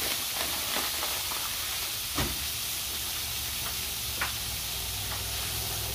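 Frozen sausage and diced peppers, onions and potatoes sizzling on a hot Blackstone flat-top griddle, a steady hiss as the frozen mix cooks down, with a sharp click about two seconds in.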